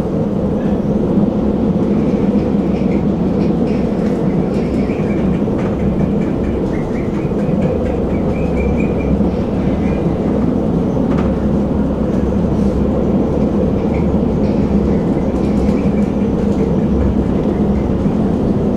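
Tram running along its track: a steady, loud rumble of wheels on rails, with a faint high squeal coming and going.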